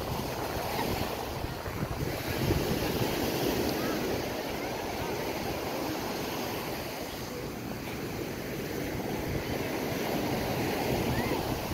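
Small waves washing onto a sandy beach, a steady rush of surf, with wind blowing across the microphone.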